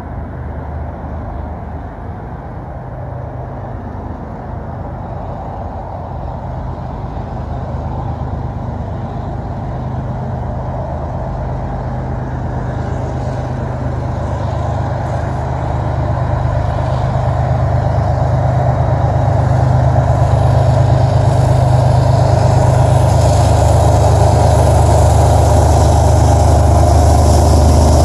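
Two Canadian National diesel freight locomotives approaching, their engines a low steady drone that grows steadily louder. From about two-thirds of the way in, a rising hiss and rattle of the train on the rails joins as the locomotives draw level.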